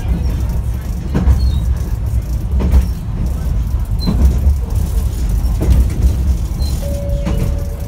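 Echizen Railway ki-bo articulated low-floor tram running on open track: a steady low rumble from the cab, with the wheels knocking over rail joints about every second and a half. A steady two-note tone comes in near the end.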